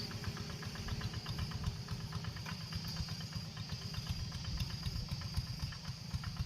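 Kubota single-cylinder diesel engine on a hand tractor running steadily, with a fast, even chugging.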